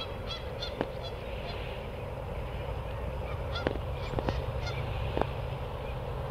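Waterfowl calling across open water: a few short calls in two groups, near the start and around the middle, over a steady low rumble. Several sharp clicks stand out as the loudest sounds.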